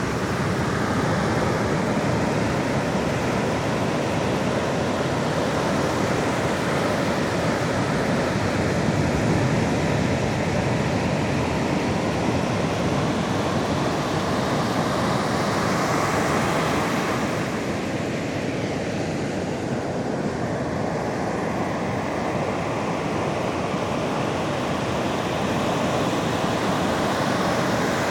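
Sea waves washing onto the shore, a steady rush that swells about halfway through and eases for a few seconds after.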